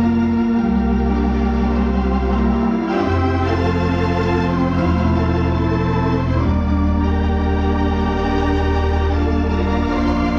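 Compton theatre pipe organ playing a slow passage of held chords, the pedal bass and harmony moving to a new chord every two to three seconds.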